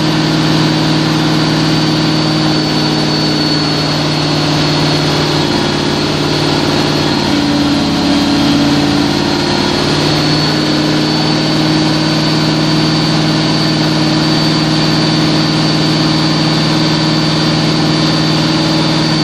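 Oldsmobile 455 V8 in a jet boat running steadily at idle on its first start, its speed wavering briefly about midway.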